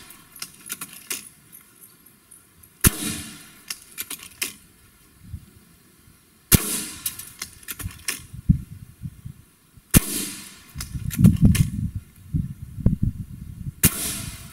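Gamo Swarm Magnum .22 gas-piston break-barrel air rifle fired point blank into a steel car door, four shots about three and a half seconds apart. Each is a sharp crack with the pellet's smack into the sheet metal, and lighter clicks and knocks fall between shots.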